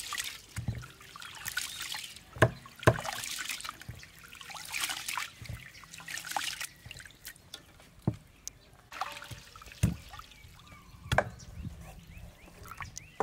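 Rice being washed by hand in a pot of water: wet sloshing and swishing as the grains are rubbed and squeezed, with a few sharp knocks. Near the end the cloudy rinse water is poured off.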